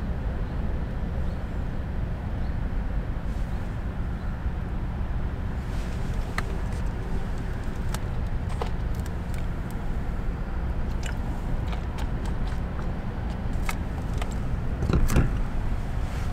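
A car driving, with a steady low road and engine rumble, scattered small clicks and a brief louder rattle about fifteen seconds in.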